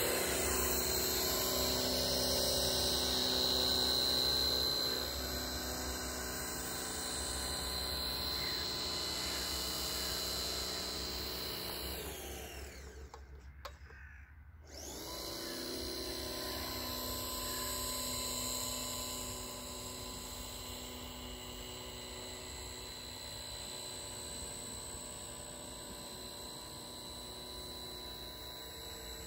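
Motor of a small radio-controlled model boat running with a steady whine. About twelve seconds in it dies away and cuts out for about two seconds, then starts again and runs on, growing fainter as the boat gets farther away.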